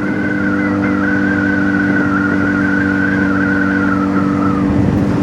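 Honda motorcycle's engine running at a steady speed while riding, its pitch holding level, over a low rush of road and wind noise.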